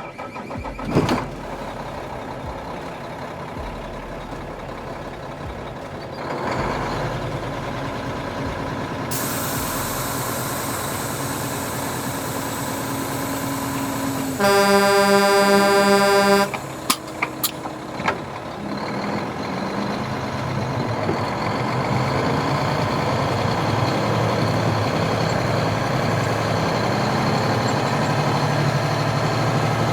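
Sound module of an RC Scania R730 truck playing a V8 truck engine running. A steady air hiss starts about nine seconds in, and a horn sounds in a few quick pulses about halfway through.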